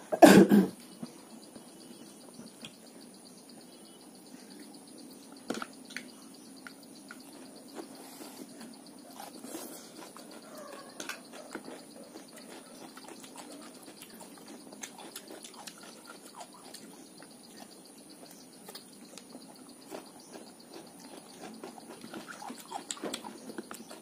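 Eating at a table: scattered small clicks of spoons and chopsticks against bowls, with a loud short clatter at the very start, over a low steady hum.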